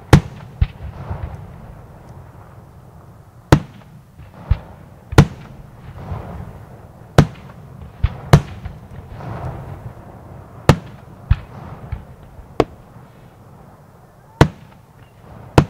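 Aerial firework shells bursting: about a dozen sharp bangs, irregularly spaced from half a second to two seconds apart, with softer crackling between them.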